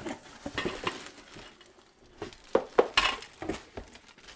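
Packed broom and dustpan parts being pulled from a cardboard box: plastic wrapping rustles, then the handle sections clink and knock against each other. A brief lull comes about halfway through, followed by a run of sharp clinks and knocks.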